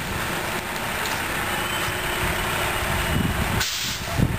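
Steady rushing noise of a pickup truck fire, with a large truck engine running beneath it from the fire engine that has just pulled up. Irregular low crackles set in near the end.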